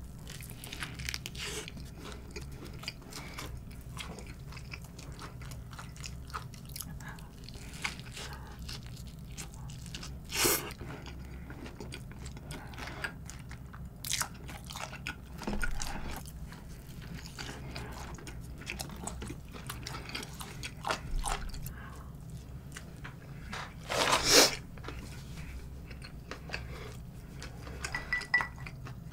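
Close-miked biting and chewing of a shrimp burger, with many small crunches and a few louder, sharper crunches about ten and twenty-four seconds in.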